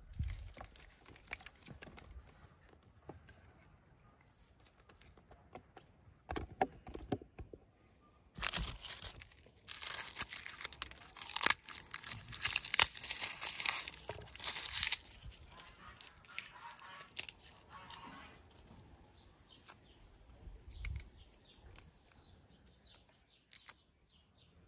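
Dry, papery garlic skins crackling and tearing as a head of garlic is broken apart and the cloves are peeled by hand, with scattered small clicks. The crackling is densest and loudest for several seconds near the middle.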